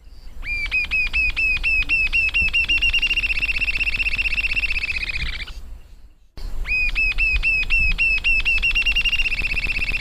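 Rufous-tailed jacamar singing: a run of high, thin whistled notes that quickens and runs together into a trill lasting about five seconds. A second, identical song begins about six seconds in.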